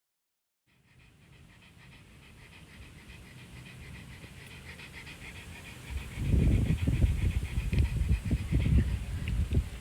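A dog panting rapidly, the quick breaths growing slowly louder. From about six seconds in, loud, irregular low buffeting on the microphone joins it.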